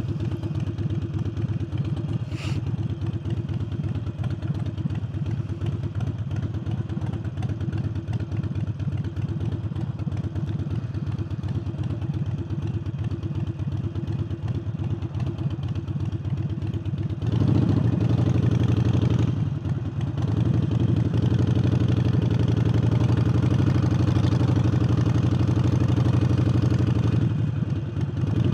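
Harley-Davidson Forty-Eight's air-cooled V-twin, fitted with a new aftermarket air intake, running at low steady speed for about seventeen seconds, then growing clearly louder as the bike pulls away. It drops briefly about twenty seconds in and again near the end.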